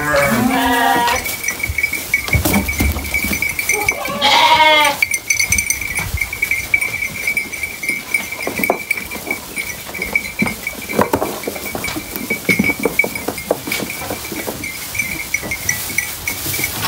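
Sheep bleating twice: one call right at the start and a louder one about four seconds in. After that come the crackle and rustle of sheep pulling at and chewing hay at the feed rack, with a thin steady high tone underneath throughout.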